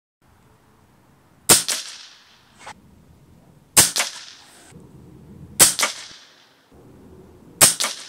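Four shots from an RTI Arms Priest 2 .22 PCP air rifle, about two seconds apart, each a sharp report with a short ring-out. They are fired to bleed the pressure down from a fresh 300 bar fill.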